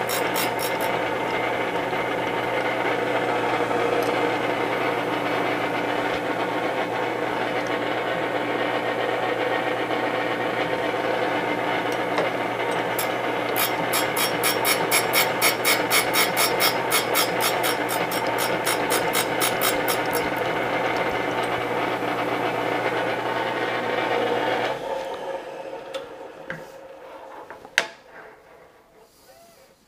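Delta Rockwell surface grinder running with its wheel grinding a threading tool held in an angle jig, a steady motor hum under a rapid ticking grind that grows louder for several seconds in the middle. About 25 s in the motor hum stops and the sound dies away, with a single sharp click near the end.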